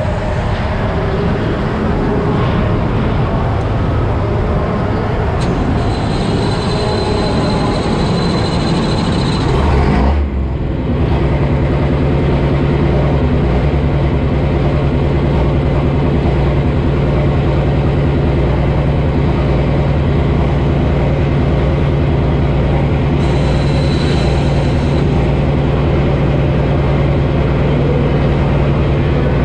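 Light Pro pulling tractor's engine idling at the line. About ten seconds in there is a brief louder surge, then the engine settles into a steady, even idle note, with a faint high whine coming and going twice.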